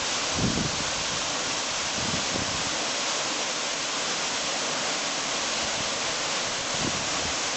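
Takayu Fudo waterfall: a steady rush of falling water, with a few brief low rumbles.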